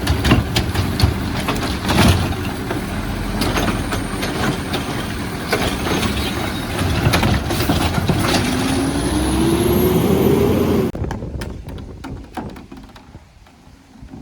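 Heil Rapid Rail automated side-loader garbage truck at work: the engine and hydraulics run loudly among repeated clattering knocks, and a rising whine builds near the end. The whole din then drops away sharply, leaving a few faint clicks.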